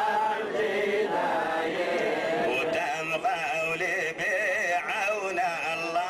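Hebrew liturgical chanting by a group of voices, Adeni Jewish prayer. About halfway through, one voice comes forward with a wavering, ornamented melody.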